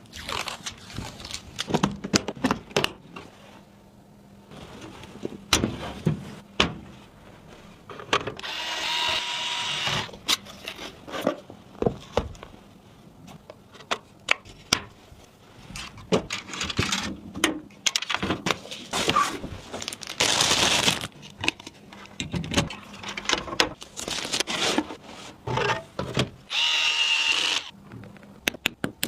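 Electric screwdriver whirring in three short bursts, driving screws, among many clicks and knocks of computer parts being handled and fitted.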